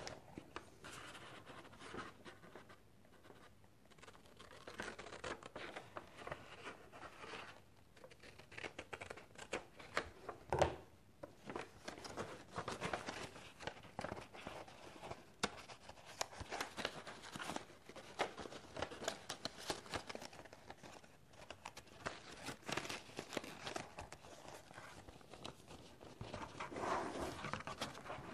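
Soft rustling and scraping of paperback book pages being turned and folded by hand, in scattered short bursts, with a slightly louder one about ten seconds in.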